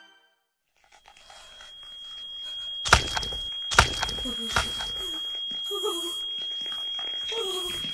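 A steady high-pitched ringing tone fades in after a moment of silence, with three hard knocks less than a second apart and a few short sliding lower tones.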